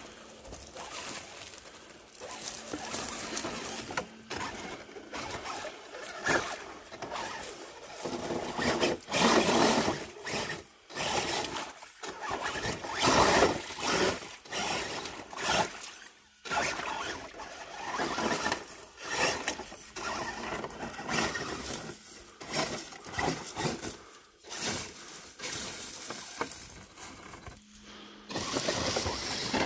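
RGT Rock Hammer RC crawler truck driving over dry leaves and through a shallow muddy creek: uneven crunching and rustling of leaves and splashing water in short surges, with the truck's electric motor and gears running under it.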